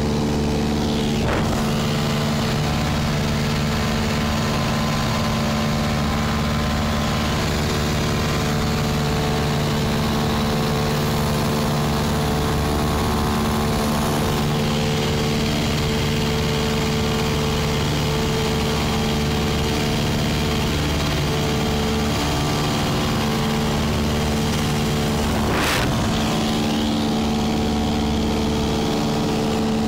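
Single-engine light aircraft's piston engine and propeller droning at a steady, even pitch in cruise, heard from inside the cabin.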